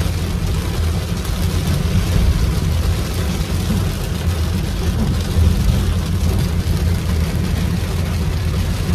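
Heavy rain drumming on a car's roof and windscreen, heard from inside the cabin over the steady low rumble of the car driving.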